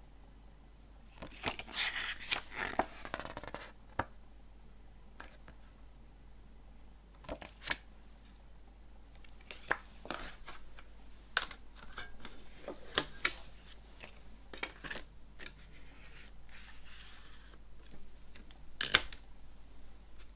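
Paper CD booklet rustling as it is handled, then a string of sharp plastic clicks and taps as a clear CD jewel case is handled on a wooden table, the loudest about a second before the end.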